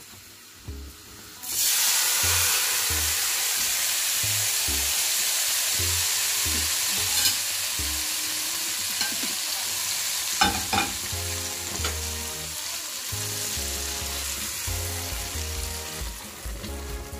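Hot desi ghee with fried onions poured onto a pot of daleem as a tadka, sizzling: a sudden loud hiss starts about a second and a half in and runs on, slowly easing off. A spoon clicks against the pot a few times about ten seconds in.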